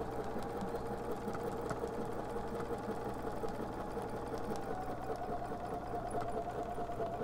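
Bernina 780 sewing machine running steadily with a walking foot, sewing a wide serpentine stitch through a quilt: a steady motor whine with the rapid, even rhythm of the needle.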